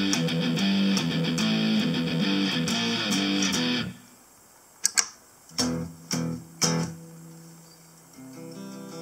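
Electric guitar played through a Harley Benton DNAfx GiT multi-effects processor preset: a busy riff that stops about four seconds in, a few sharp single strums after a short pause, then another passage starting near the end.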